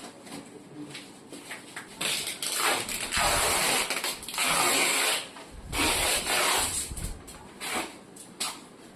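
Packing material being pulled and worked around a fridge: four long rasping, rustling pulls of about a second each, followed by a couple of short scrapes near the end.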